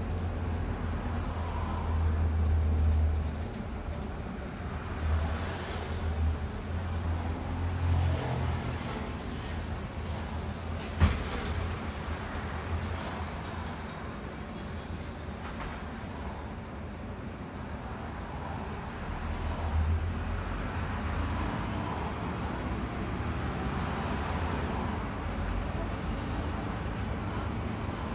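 Bus on the move: a steady low engine rumble with road noise that swells and eases now and then, and a single sharp knock about eleven seconds in.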